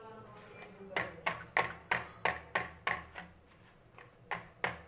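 Clear plastic chocolate mould full of melted chocolate and nuts, tapped against a stone countertop to level and settle the chocolate: a quick run of about eight sharp knocks, then two more near the end.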